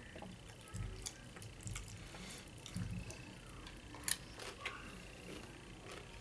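Close-miked nacho eating: tortilla chips (Doritos) under cheese and meat crackling as they are picked off the plate, with a sharp crunch of a bite about four seconds in, among light chewing and mouth sounds.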